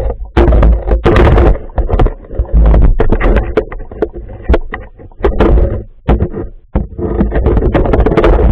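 Muffled underwater rumbling and irregular knocking picked up by a submerged camera on a gravel riverbed, as flowing water buffets the camera.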